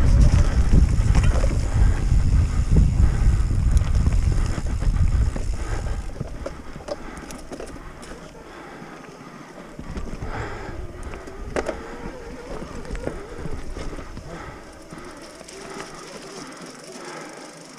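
Mountain bike being ridden on a trail, with heavy wind rumble on the microphone for the first six seconds; then it goes much quieter, leaving light clicks and rattles.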